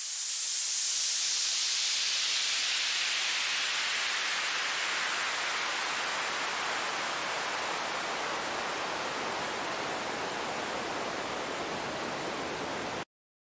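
White-noise downlifter from FL Studio's 3x Osc set to noise, run through a resonant band-pass filter whose cutoff is automated slowly downward: a bright hiss that sinks to a duller, lower wash while easing in level, then cuts off suddenly near the end.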